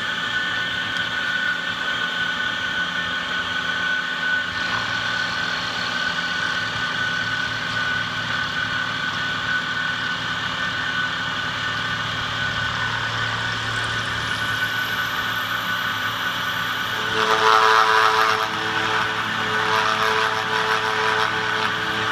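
Milling machine spindle running with a steady high whine while its cutter machines a metal bracket under flowing coolant. A little past halfway a high whine rises, and shortly after the cutter bites into a heavier cut, louder for a moment and then settling into a steady pitched ringing with chip noise.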